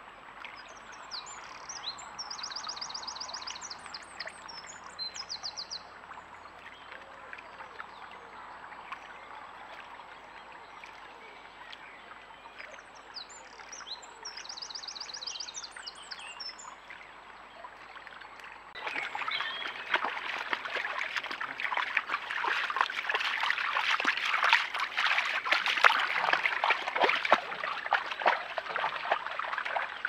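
Shallow stream trickling while a small songbird sings two high phrases, each ending in a fast trill. About two thirds of the way in, a much louder patch of splashing water takes over.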